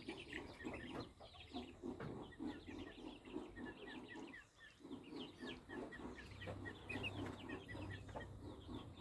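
Aseel chicks peeping: many short, high, falling peeps, several a second, over steady lower clucking.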